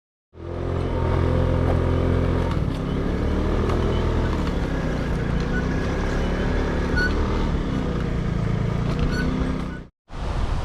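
A motor vehicle's engine running steadily with a low, even hum. It starts abruptly just after the start and cuts off abruptly near the end.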